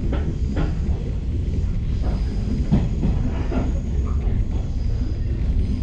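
Steady low rumble of a Shinano Railway electric train heard from inside the carriage as it pulls out of a station, with scattered short knocks and clatter from the running gear.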